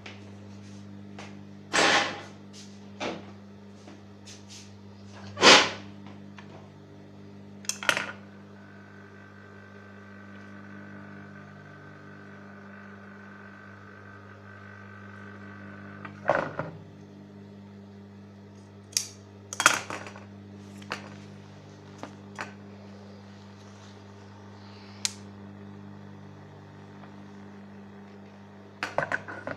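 Tailor's scissors cutting away excess trouser fabric: a handful of separate sharp snips and clacks with pauses between them, over a steady low electrical hum.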